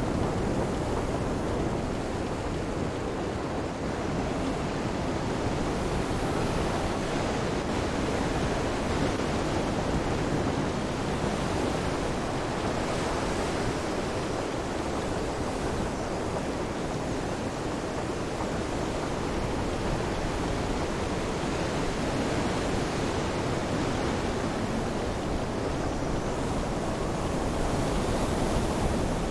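Steady storm ambience: an even rush of rain, wind and surf with no distinct events standing out.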